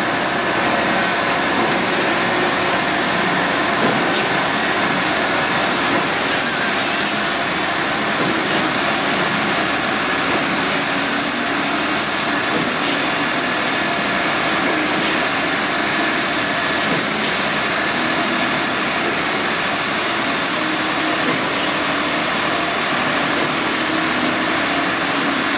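Steady, loud din of heavy construction machinery running without a break, the mixed engine and machine noise of a mass concrete pour.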